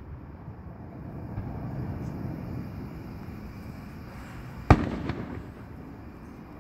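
Aerial fireworks: one sharp bang a little over four and a half seconds in, followed by a short crackle and a fading tail, over a steady low background noise.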